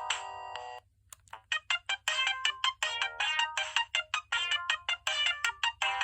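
Siemens C55 mobile phone playing its preloaded ringtones. A tune of long held notes stops just under a second in, and after a brief pause another ringtone begins: a quick run of short, clipped electronic notes.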